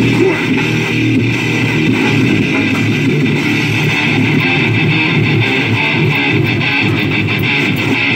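Rock music on the radio, with strummed electric guitar and bass guitar playing steadily.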